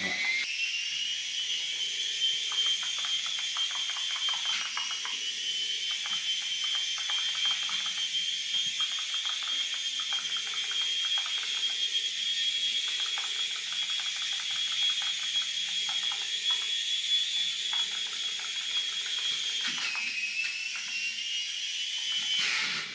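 The small electric drive motor of an Air Hogs Moto Frenzy RC motorbike running: a steady high-pitched whine that dips in pitch about five seconds in and again near the end, over scattered clicks and rattles as the toy rides about.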